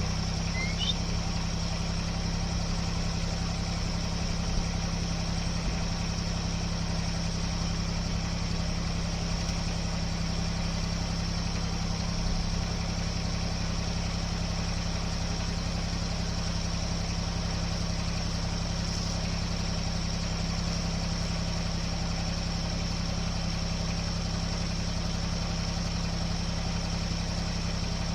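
Engine of a bucket loader running steadily at a low idle, with a few faint knocks.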